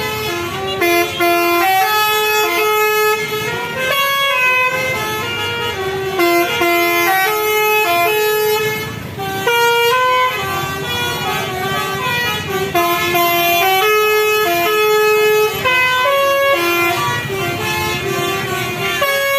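Basuri 'telolet' multi-tone bus air horns playing a fast melody, one note stepping to the next every fraction of a second, loud and nearly without a break, with a short dip about nine seconds in.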